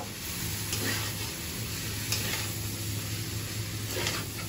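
Boiled noodles sizzling in a steel kadhai as they fry with onion and spices, stirred and tossed with a spatula, a few brief scrapes of the spatula against the pan standing out from the steady sizzle.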